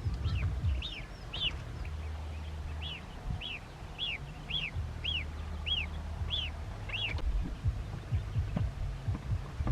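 Ducklings peeping: a repeated high, arched chirp about twice a second that stops a little after seven seconds in. Beneath it are a low steady rumble and a few low knocks.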